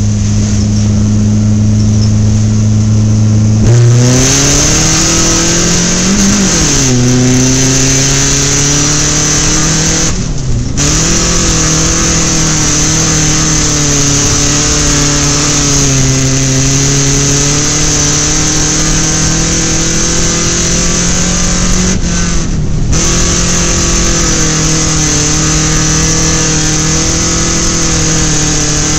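Dirt-track stock car's engine at race speed, heard from inside the car. It holds one steady pitch for the first few seconds, then its pitch falls and rises again and again as the throttle comes off and goes back on, over a constant rushing noise.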